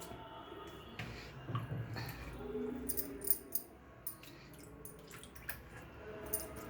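Washed chana (gram) greens being handled in water: drips, small splashes and wet rustling, with scattered light clicks.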